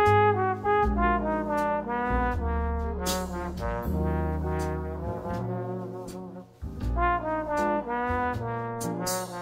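Jazz background music: a brass melody over a bass line.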